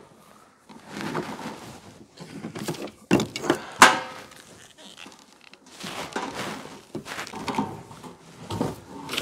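Rubbing, scraping and knocking as a coiled plastic fuel hose is turned by hand to screw its fitting into the brass valve of a fuel tank, with two sharper knocks a little past three seconds in.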